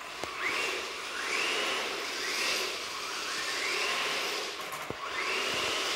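Electric RC car's motor whining up and down in repeated bursts of throttle, about one rising whine every second or so, as it drifts around a concrete floor on a low power setting.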